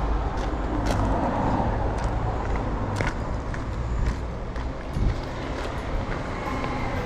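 Steady low rumble of road traffic, with a few sharp clicks.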